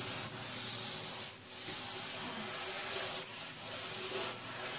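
Board eraser rubbing chalk off a chalkboard in a series of long wiping strokes with brief pauses between them.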